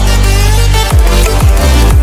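Background electronic music with heavy bass and hard drum hits that drop sharply in pitch, about half a second apart.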